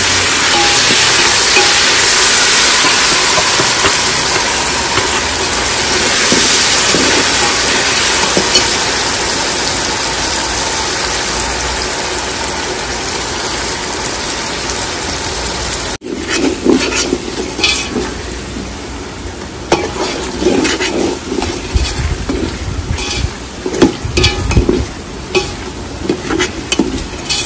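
Onions and freshly added ground masala paste frying in hot oil in a large aluminium pot, sizzling loudly and steadily, the sizzle slowly easing. About two-thirds through it breaks off sharply, and a softer sizzle follows with a slotted metal spoon stirring and knocking against the pot.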